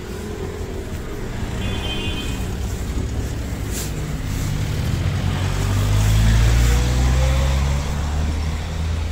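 Bus engine running close by amid street traffic, a low rumble that swells louder about five to seven seconds in, then eases slightly.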